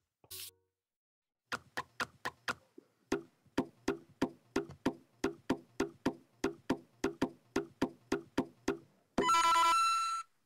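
Rapid, even clicking, about three to four clicks a second, from a LEGO Super Mario figure in its Cat Mario suit as it climbs a wall. Near the end comes a bright ringing chime, the figure's coin sound.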